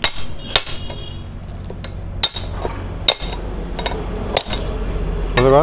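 Hammer striking steel: about five loud, sharp metallic blows, irregularly spaced, each with a short ring, plus a few lighter taps. The blows are driving apart an Eicher 11.12 truck's worn tie rod end on a wooden block.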